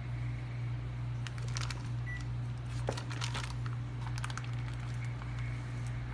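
Plastic wrap on frozen turkey burger patties crinkling in short, scattered crackles as they are handled, over a steady low hum.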